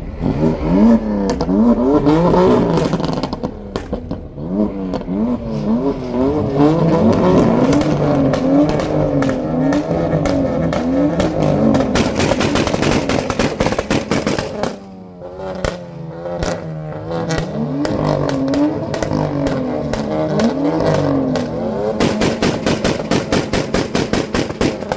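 A performance car's engine revved over and over while stationary, its pitch rising and falling about once a second, with rapid exhaust pops and crackles that come in dense runs about halfway through and again near the end.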